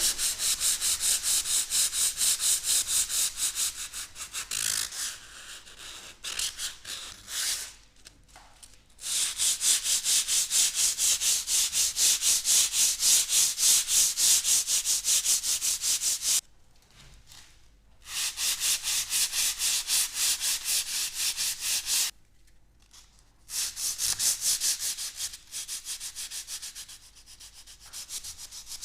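Sanding of old plaster cornice by hand: abrasive rubbing back and forth in quick, even strokes, about four a second. The strokes come in several runs with brief pauses between them.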